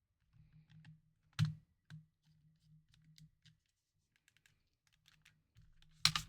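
Light plastic clicks and taps from handling a handheld game console's parts during reassembly: scattered small clicks, a sharper one about a second and a half in, and a quick run of clicks near the end.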